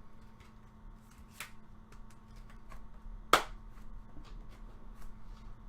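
Hands handling trading cards: light rustling with a faint click about a second and a half in and one sharp, loud snap a little past three seconds in.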